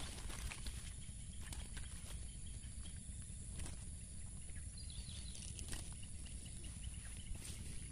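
Soft, irregular taps and rustles as a netful of freshly caught fish is tipped out onto grass and handled, over a low steady rumble.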